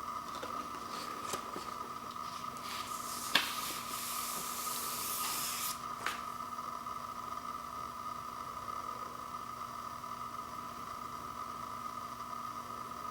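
Vinyl LP packaging being handled: a sharp tap, then paper or plastic rustling and sliding for about two seconds, and a second, softer tap. A steady high electrical whine runs underneath.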